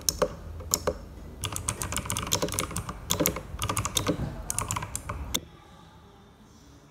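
Fast typing on a compact mechanical keyboard: an irregular run of sharp key clacks that stops abruptly about five seconds in, leaving quiet room tone.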